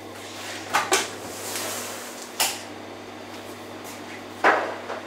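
Glass jars being set down on shelves and a storage-room door being handled: four sharp knocks and clunks, the loudest about four and a half seconds in, over a steady low hum.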